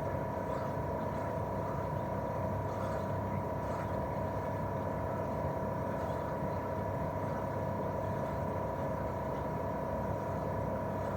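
Daikin R28RMV mini-split outdoor unit running steadily in cooling: the inverter-driven twin-cylinder swing compressor gives a constant whine over the low hum and rush of the propeller fan.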